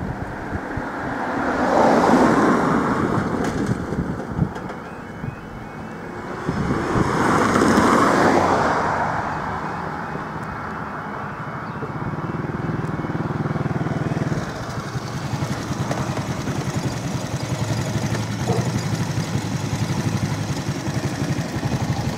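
Two road vehicles pass over the level crossing, about 2 and 8 seconds in. From about halfway through, the crossing's alarm sounds steadily and fairly quietly while the red lights flash and the half barriers come down, with a higher tone joining a few seconds later.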